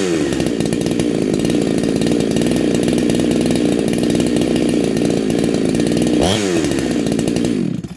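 Neo-tec NH872 two-stroke chainsaw, a Husqvarna 372XP clone fitted with a big-bore kit and a modified twin-outlet muffler, running at high revs. Its pitch briefly dips and climbs back twice, and the engine cuts off just before the end.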